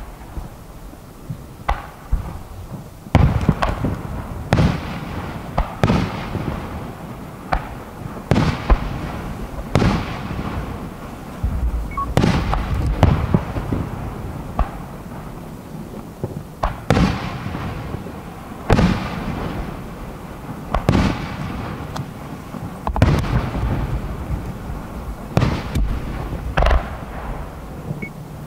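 Aerial firework shells launching and bursting in quick succession, a sharp bang every second or two, each trailing off.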